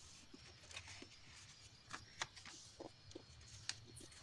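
Faint rustling and crackling of a sheet of origami paper being folded and creased by hand, with scattered short ticks of paper on the table.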